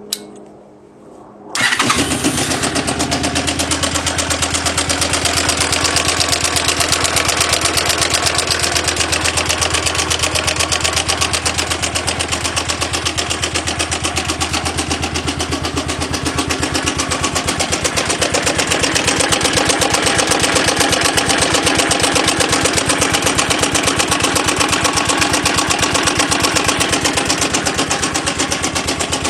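A click, then about a second and a half in an engine starts and keeps running steadily with a fast, even pulse.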